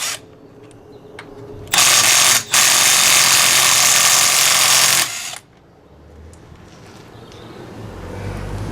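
Milwaukee M12 FUEL 1/2-inch right-angle impact wrench hammering on a car wheel nut on its second power setting, breaking loose a nut done up to about 110 Nm. It runs in two bursts, a short one and then one of about two and a half seconds, stopping about five seconds in.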